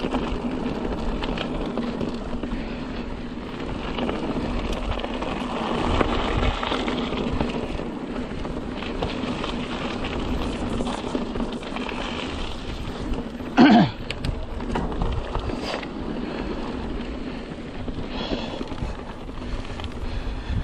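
Mountain bike riding a dirt trail: a steady rumble of tyres and rattling, with wind on the microphone. About 14 seconds in there is a brief, loud sound that falls in pitch.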